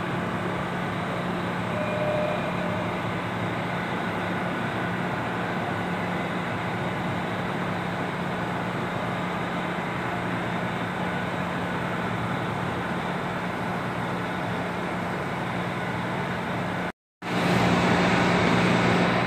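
Subway train standing in the station, giving a steady electrical hum and rumble. After a brief cut near the end, a louder rumble comes from a train approaching along the platform.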